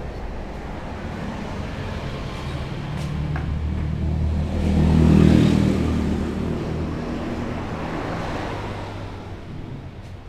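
A motor vehicle's engine running on the street, a steady low hum that grows louder as it passes about five seconds in, then fades away.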